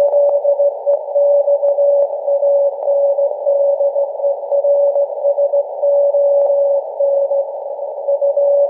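Morse code received by radio: a single tone switched on and off in dots and dashes over a band of hissing static. It is the VLF telegraphy signal of SAQ Grimeton's Alexanderson alternator, demodulated by a software-defined receiver.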